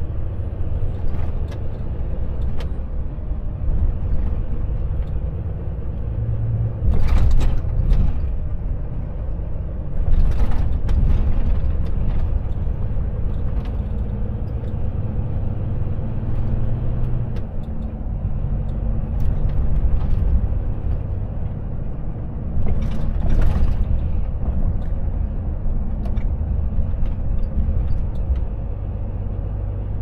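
Volvo FH truck driving: a steady low diesel engine and road rumble whose engine note shifts as it changes speed, with several short hisses.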